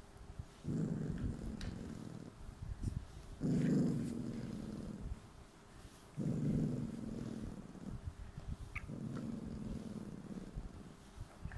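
Maltese dog making a low, cat-like purring rumble in four bouts, one every two to three seconds, while having its back massaged.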